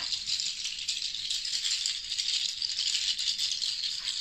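Hand-held bundle rattle of many hard, dark pieces tied together, shaken steadily so the pieces clatter in a continuous dense patter of tiny clicks, used as a rain sound effect.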